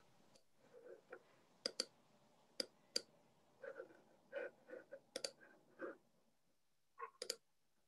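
Faint scattered clicks, several in quick pairs, with a few soft short blips between them.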